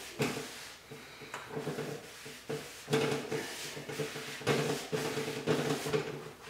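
Folded shop towel rubbing dark furniture wax back and forth into a painted wooden cabinet door, a steady run of scrubbing strokes about two a second.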